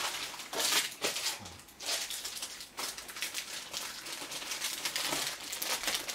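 A clear plastic bag of LEGO pieces rustling and crinkling as it is handled, in irregular bursts, with small clicks of plastic parts.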